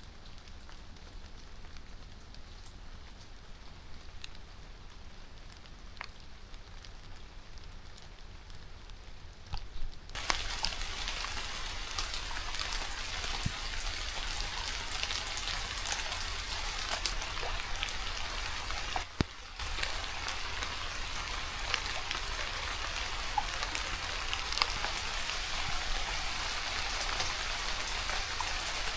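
Steady rain falling, a dense hiss with scattered sharp drop ticks. About ten seconds in it turns suddenly louder, with a brief dip shortly after the middle.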